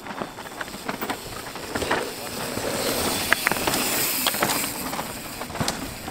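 Downhill mountain bikes riding past close by on loose dirt and rock: a rushing noise of tyres on the dirt, loudest a few seconds in, with many sharp clicks and rattles from the bikes.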